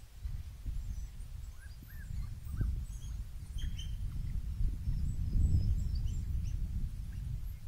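African wild dogs giving short, high twittering chirps, several in quick succession early on and scattered after, over a steady low rumble that swells about five seconds in.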